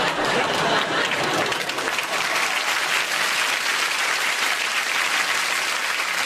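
Studio audience applauding: many hands clapping at once in a dense, steady spell of applause, with laughter mixed in at the start.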